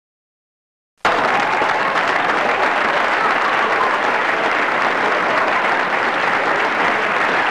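Applause from a large audience, starting abruptly about a second in and holding at a steady level.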